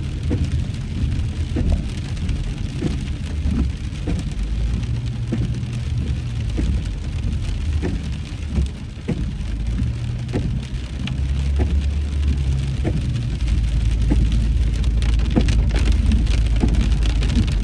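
Heavy rain pelting a car's roof and windshield, heard from inside the cabin, with irregular louder drop hits over a steady low rumble of the moving car. The rain grows heavier over the last few seconds.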